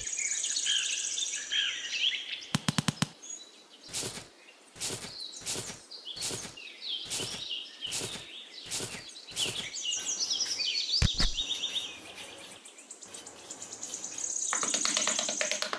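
Small hand trowel scraping and digging into sand in a series of even strokes, about one every 0.7 s, with a quick rattle of clicks before them and a single dull thud a few seconds later. Birds chirp throughout.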